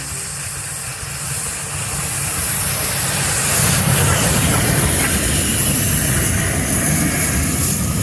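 Steam train sound: a steady hiss of steam over a low rumble, growing louder over the first few seconds.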